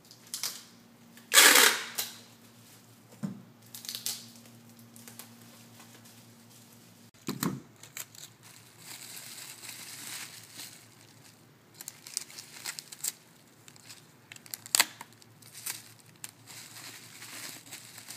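Packing tape ripped off a handheld tape-gun dispenser, one loud pull lasting about half a second, a little over a second in. This is followed by plastic bubble wrap crinkling and crackling as it is pressed and taped down, with scattered sharp clicks.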